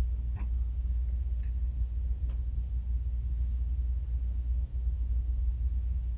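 Room tone during a moment of silence: a steady low hum, with a few faint soft clicks.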